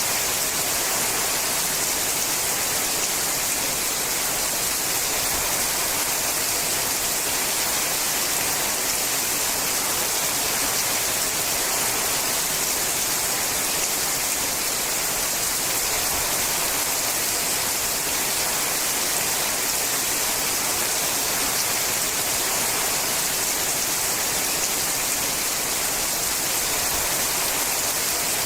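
Steady rain falling on a sheet-metal roof: an even, unbroken hiss, strongest in the high end, with no single drops standing out.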